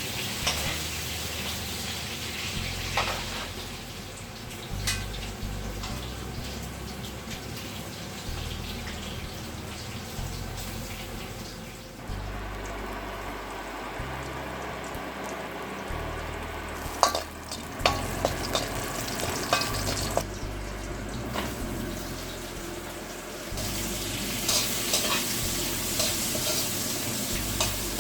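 Chicken adobo sizzling in a pan, with sharp clicks of a utensil stirring against the pan, clustered around the middle and near the end.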